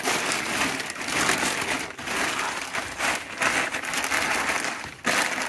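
Stiff plastic sheeting crinkling and rustling as it is handled and pulled across the ground, an irregular scrunching that goes on throughout.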